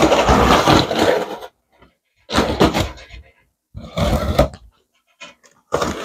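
Packing tape being ripped off the top seam of a cardboard box in three long tearing pulls, the first and loudest lasting over a second, with a few shorter rips and rustles near the end.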